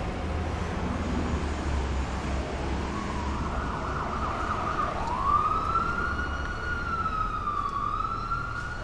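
An emergency-vehicle siren fades in about three seconds in, rises in pitch a couple of seconds later and then wavers slowly up and down. It sounds over a steady background of city traffic.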